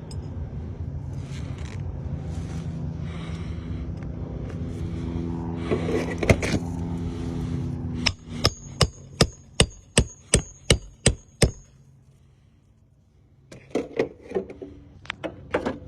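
Hammer driving roofing nails to fasten a replacement asphalt shingle: a quick run of about ten blows, roughly three a second, then a few more after a short pause. A steady low engine-like hum runs underneath during the first half.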